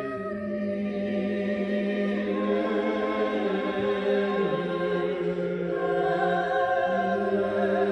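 Several voices singing a slow devotional chant without accompaniment, in long held notes that move to a new chord every couple of seconds.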